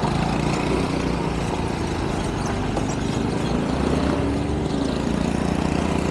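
Motorcycle engine running steadily at cruising speed, a low even hum under a constant rush of wind and road noise.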